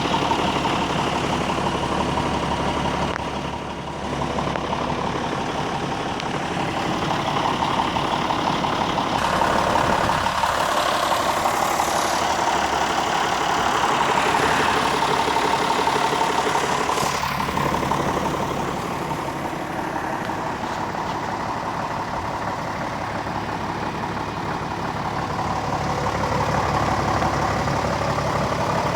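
Diesel engine of a John Deere 6605 farm tractor running steadily at idle, with a brief dip in level about four seconds in.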